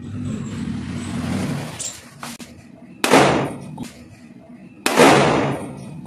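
Toy cork-cap revolver firing triple-power corks: two loud sharp bangs about two seconds apart, each followed by a short echo.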